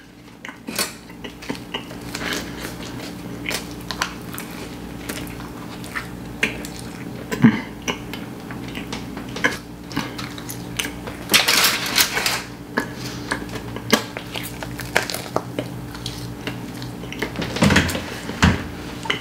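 Close-up mukbang eating sounds: a person chewing a stuffed flatbread, with many short wet mouth clicks and smacks and a few louder rustling bursts as the bread is torn. A steady low hum runs underneath.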